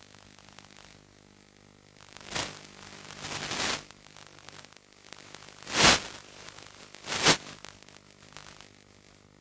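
Hiss of static on the audio channel of a 5.8 GHz analog FPV video link, swelling into loud bursts of static about two and a half seconds in, again around three and a half seconds, and twice more sharply near six and seven seconds in.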